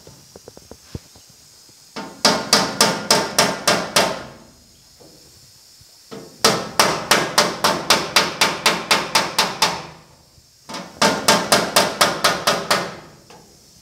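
Body hammer tapping quickly on the sheet metal of a 1950 Chevy truck cab, with a block of wood behind the panel as a dolly, knocking down a high spot around the antenna hole. It comes in three runs of sharp, ringing taps, about four or five a second, each run lasting two to three seconds.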